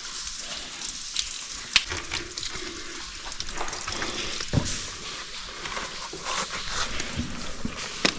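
Steady hiss of falling, splashing water from a cave waterfall, with scattered sharp clicks and knocks, the loudest a bit under two seconds in.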